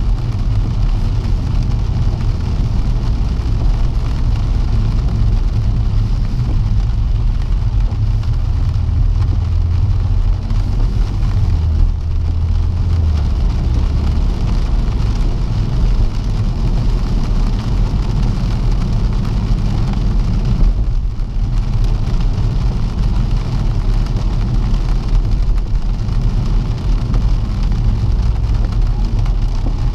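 In-cabin driving noise of a BMW M140i on a wet road: a steady low rumble of engine and tyres with the hiss of rain and spray. The low drone swells briefly around twelve to thirteen seconds in.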